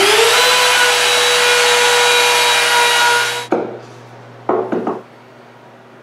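Compact trim router spinning up with a rising whine and running steadily at speed while trimming the wood edge of a cabinet, cutting off abruptly about three and a half seconds in. About a second later come a few short scraping strokes of a chisel paring wood.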